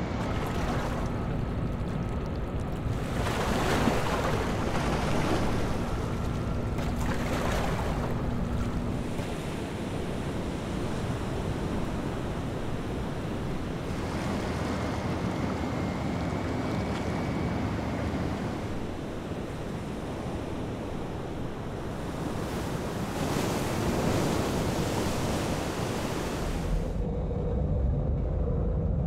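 Ocean surf: waves breaking and washing with wind noise, surging louder several times. Near the end it turns to a deeper rumble.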